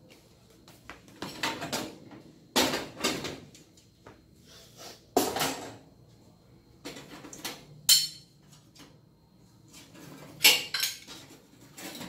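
Metal grates being lifted off a four-burner gas stove and set down, clattering in several separate bursts with pauses between. Near the end, small metal burner caps clink as they are pulled off.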